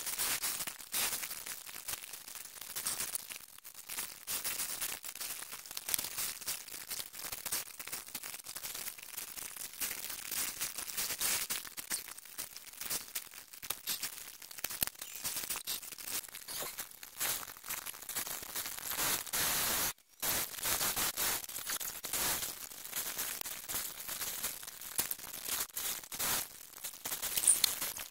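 Rustling, crinkling and scraping of a suede-like costume hood with fur trim being handled and adjusted on a foam mannequin, an uneven run of small rustles that breaks off for a moment about two-thirds of the way in.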